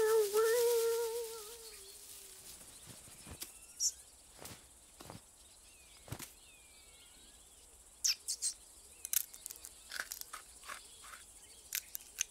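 Cartoon cat's drawn-out vocal call, held and then fading away over the first two seconds. Faint countryside ambience follows, with small chirps and a scattered run of short clicks and rustles that grows busier after about eight seconds.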